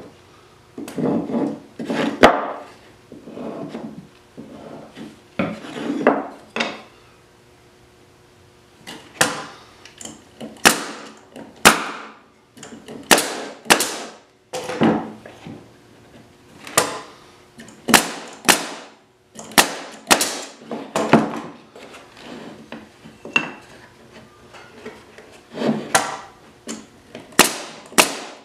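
Pneumatic nail gun firing nails into wooden boards: a sharp snap with each shot, many shots from about a third of the way in, often two in quick succession. Before that, wooden pieces are handled and knocked against each other.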